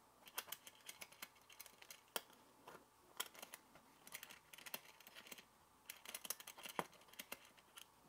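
Faint handling noises: small irregular clicks and rustles as the metal thumbscrew of an aluminium camera clip is turned and the clip is fitted onto a fabric backpack strap.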